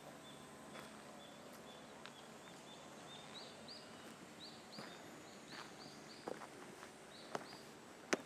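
Footsteps on dirt and stone under a quiet outdoor background, with a bird repeating short, high chirps several times a second. The chirps turn into pairs of rising notes from about three seconds in. A sharper footfall lands near the end as the walker steps onto the stone stairs.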